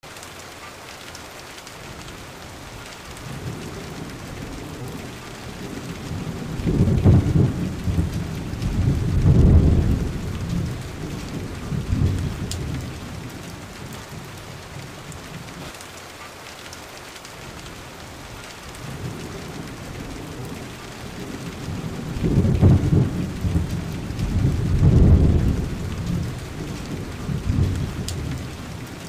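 Steady rain falling, with two long rolls of low thunder. One builds a few seconds in and the other about twenty seconds in, and each swells twice before dying away.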